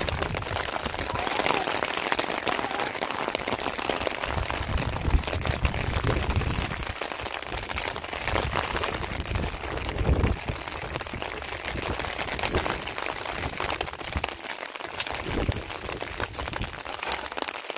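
Steady rain, with low rumbles and scattered knocks now and then.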